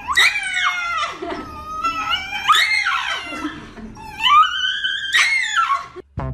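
A dog howling: several long, high howls that rise and then fall in pitch.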